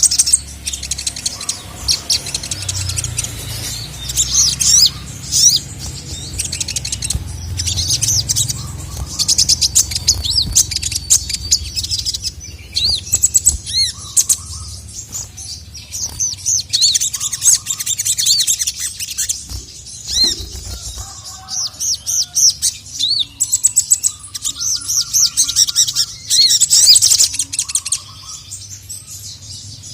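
Sogon (sogok ontong) songbird singing a long, rapid, high-pitched chattering song, broken by short pauses and quick repeated chirps.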